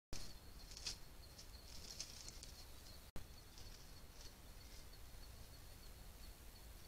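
Faint night-time trail-camera ambience: a steady thin high tone over hiss, with a few soft, brief rustling scratches. Two sharp clicks mark splices between recordings, right at the start and about three seconds in, and are the loudest sounds.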